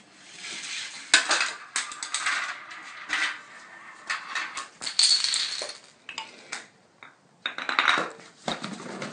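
A Rube Goldberg chain reaction running: a toy car rolling down a plastic track, marbles rattling through a plastic marble run, and dominoes, wooden blocks and books toppling one after another, a long run of clattering clicks with a brief lull about six seconds in.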